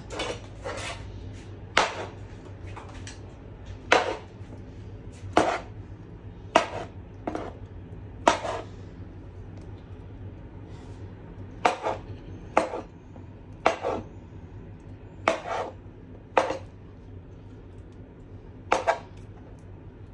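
Sharp clacks of a utensil knocking against a plastic food container and dishes, about fifteen in all at irregular spacing, some in quick pairs.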